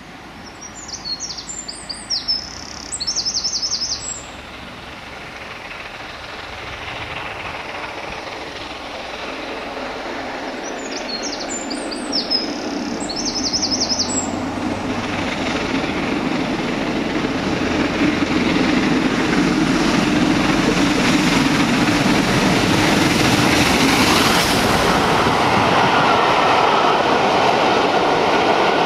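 A steam locomotive hauling coaches approaches and passes close by, growing steadily louder until it is at its loudest over the last ten seconds as the coaches roll past. In the first half a songbird sings two short trilling phrases, about ten seconds apart.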